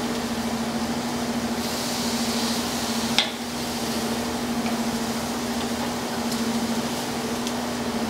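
Steady mechanical hum of a commercial kitchen's exhaust hood with one low tone, over a faint sizzle of chicken on a gas charbroiler. A single sharp metal click about three seconds in: tongs striking the grill grate while the pieces are turned.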